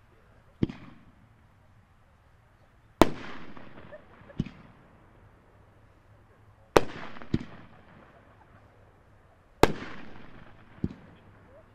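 A Dominator 500-gram fireworks cake, 'Giant Willow with Color Tips', firing its shells one at a time. Each launch thump is followed about two seconds later by a loud aerial burst that trails off in a rumble. Three shells break, and a fourth is launched near the end.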